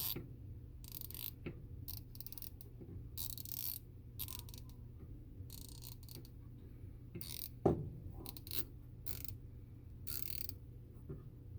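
1/4-inch drive Icon hand ratchet clicking in irregular runs as it is swung back and forth. The ratchet mechanism intermittently jams.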